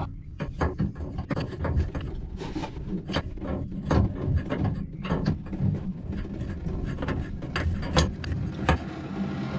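Open-end wrench working a valve fitting loose on a hydraulic valve block: an irregular scatter of small metal clicks and scrapes as the wrench is set on and turned, over a steady low hum.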